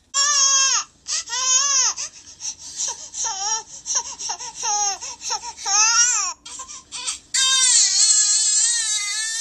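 A baby crying in a string of high, wavering wails, the last one long and held before it cuts off suddenly.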